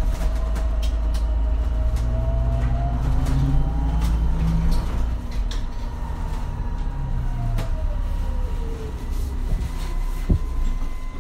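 MAN Lion's City Hybrid city bus running: a low rumble, heaviest in the first half, under a whine from the hybrid drive that slides down in pitch and rises again as the bus slows and speeds up. A single sharp knock comes about ten seconds in.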